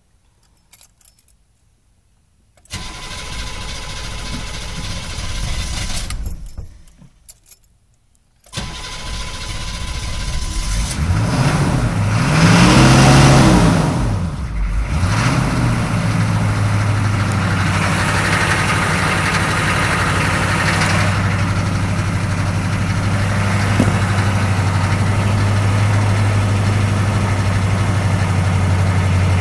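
6.2L diesel engine cranked on the starter twice: the first attempt stops after a few seconds, the second catches, revs up and back down once, and then settles into a steady idle. It is a cold-morning restart after the engine idled rough and stalled, which the owner puts down to the temperature.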